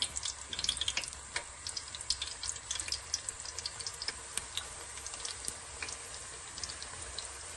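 Marinated chicken wings frying in hot oil in a wok, a steady sizzling hiss with frequent small pops and crackles as more pieces are added.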